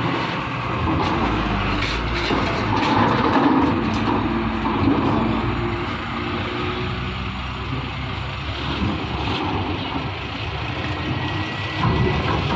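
Diesel dump truck running at low speed as it drives past and up a steel ramp into a ferry's vehicle deck, with a few sharp clanks along the way.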